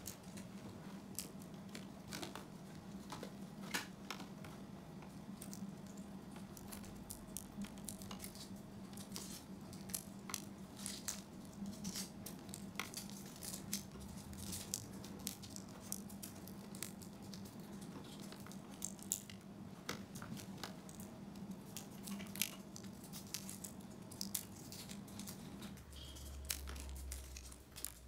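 Scattered small clicks, crinkles and rustles of hands handling automotive wiring and connectors, over a steady low hum that gives way to a deeper hum near the end.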